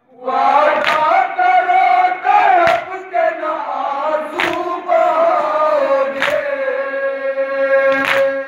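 A group of men chanting a nauha (Shia mourning lament) in long held notes, with a sharp unison matam slap, hands striking chests, about every two seconds.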